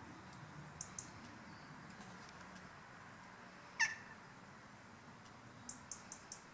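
High-pitched calls from small animals over a faint steady background: a pair of short chirps about a second in, one loud squeak that falls steeply in pitch a little under 4 s in, and a quick run of four short chirps near the end.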